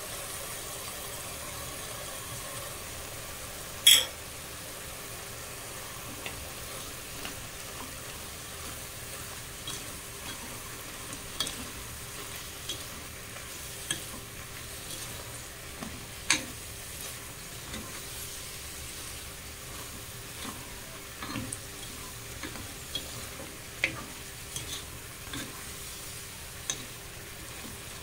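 Diced chicken sizzling steadily in a hot pan while a spatula stirs it, with irregular clicks and scrapes of the spatula against the pan and one sharp knock about four seconds in.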